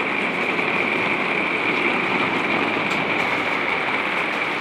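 Heavy rain pouring down in a storm, a steady dense hiss, heard from the open doorway of an RV travel trailer.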